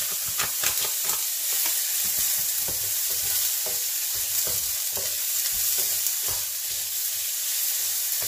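Diced bacon and onions sizzling in a nonstick frying pan, with a wooden spatula stirring them and scraping and tapping against the pan again and again.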